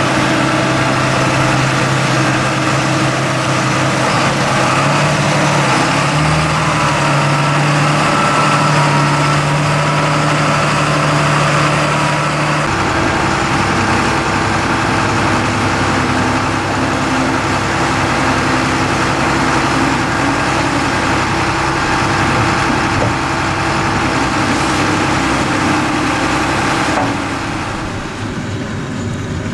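John Deere 8200 tractor's diesel engine running steadily as it packs chopped corn silage. About halfway through, the engine note changes abruptly to a Caterpillar telehandler loader's diesel working the pile. Near the end the sound drops a little as a tractor towing a silage trailer comes in on a lane.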